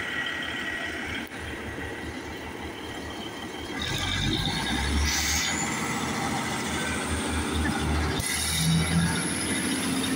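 British Rail Class 150 Sprinter diesel multiple unit pulling away past the level crossing at close range: its underfloor diesel engine and wheels on the rails run louder and heavier from about four seconds in, with a rising whine. A high wheel squeal starts near the end.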